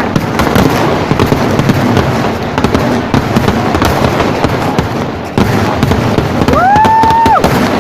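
Dense, continuous barrage of festival fireworks: rapid, overlapping bangs and crackling that ease slightly just after five seconds, then surge again. Near the end a single high tone rises, holds for about a second and drops away.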